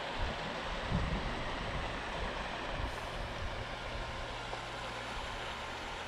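Steady rush of a small stream spilling over rocks into a pool, with a low thump about a second in.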